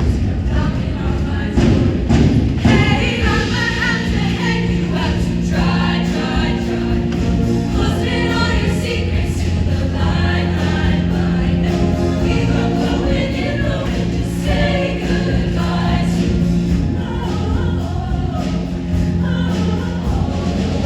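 Show choir singing with instrumental accompaniment, a sustained bass line underneath the voices.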